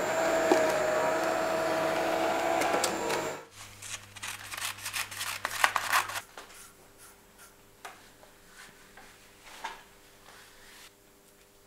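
A small printer running as it prints a sheet, a steady mechanical noise with a whine that stops abruptly about three and a half seconds in. Then scissors snip through thin transfer paper in a quick run of sharp clicks for a couple of seconds.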